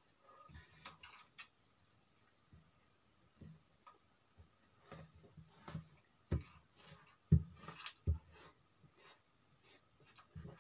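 Hands working over cotton cloth: soft rubbing and scattered light taps as a line is marked along a measuring tape, with a few soft thumps about two-thirds of the way in.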